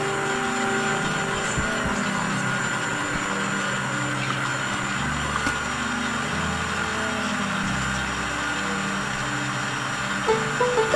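Electric stand mixer motor running steadily, its beater turning through a butter-and-sugar mixture in a stainless steel bowl.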